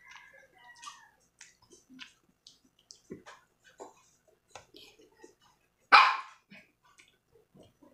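A dog barks, once loudly about six seconds in, over the soft, clicky chewing sounds of someone eating crisp mango.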